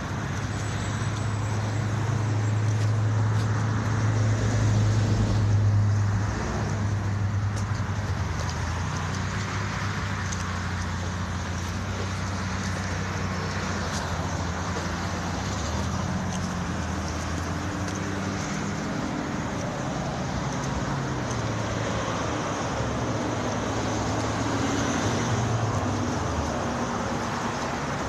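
A motor running with a steady low hum over a wash of outdoor noise, loudest about four to six seconds in.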